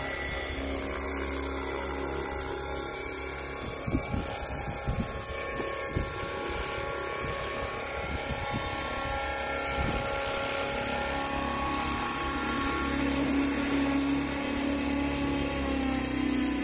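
Align T-Rex 500 electric RC helicopter in an AS350 Écureuil scale body: the motor and gears whine steadily with rotor noise as it flies and lands. A few low thumps come a few seconds in, and near the end the whine falls in pitch as the rotor winds down.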